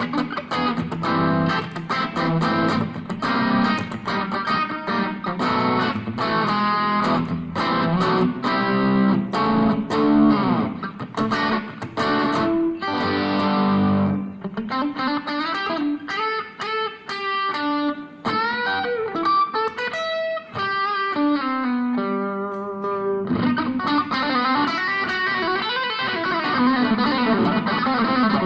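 Electric guitar played through a Boss ME-25 multi-effects unit on a clean, compressed patch (clean preamp plus compressor). Chords first, then a single-note line from about halfway in, with bends and slides, then chords again near the end.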